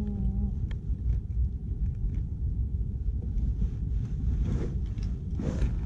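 Wind rumbling on the microphone, a steady low buffeting, with a couple of faint scrapes or clicks about four and a half and five and a half seconds in.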